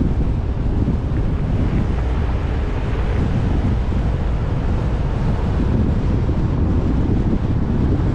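Wind buffeting the microphone: a steady low rumble with an irregular flutter.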